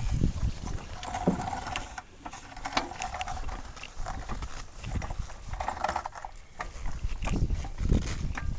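Scattered knocks and clanks of hand work on a minivan's tire change, over an uneven low rumble.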